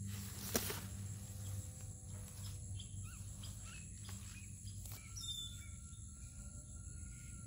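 Rural garden ambience: insects trilling steadily at a high pitch, with short bird chirps scattered through. A single sharp click comes about half a second in.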